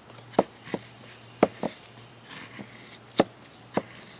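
Ka-Bar kukri machete blade shaving curls off a dry wooden stick: about six sharp cutting strokes, some in quick pairs.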